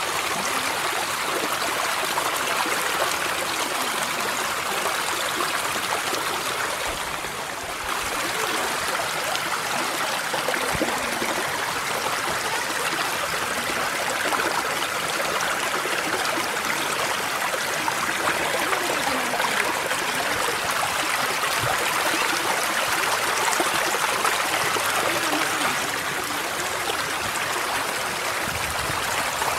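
Mountain stream rushing over rocks and boulders: a steady, dense wash of water noise, dipping briefly about seven seconds in.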